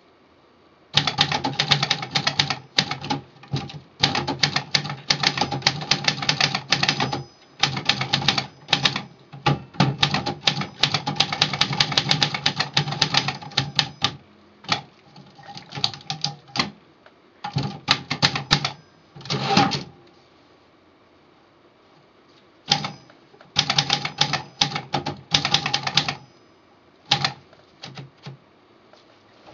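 Brother portable typewriter being typed on: fast runs of key strikes lasting several seconds at a time, broken by short pauses and a few single strokes, with a quiet stretch of a couple of seconds about two-thirds of the way through.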